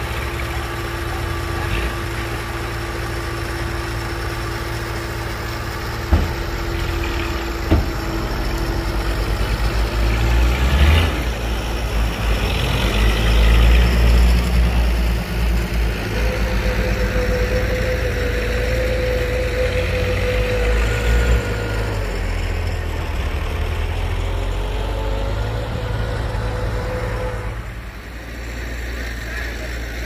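Diesel engines of a dump truck and a small crawler bulldozer running steadily, with two sharp knocks about six and eight seconds in. The truck's engine then grows louder as it pulls away and drives off along a dirt track, with a steady whine for several seconds in the middle.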